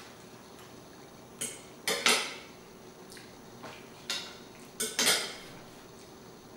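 Metal fork clinking and scraping against a plate while cutting a stuffed cabbage roll: a cluster of taps about two seconds in and another near five seconds, with a few fainter ones between. The loudest taps ring briefly.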